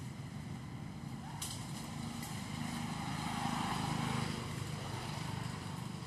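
A distant engine hum that swells to its loudest about three to four seconds in, then eases off.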